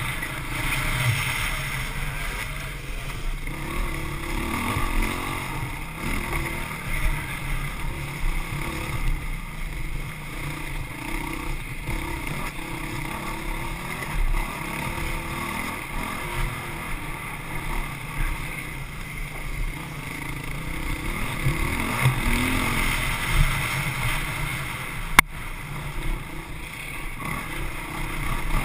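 Dirt bike engine running at speed on a rough trail, its level rising and falling throughout, with a single sharp knock about 25 seconds in.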